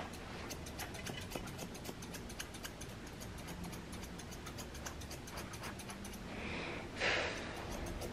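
Grooming scissors snipping through a puppy's face fur, a quick, uneven run of small clicks. A short, louder rush of noise comes about seven seconds in.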